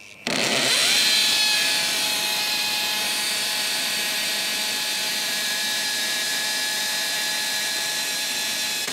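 Electric hammer drill in hammer-drilling mode, boring a masonry bit into hard sand-lime brick. The motor winds up with a brief rising whine, runs at a steady pitch over a dense hiss, and stops near the end.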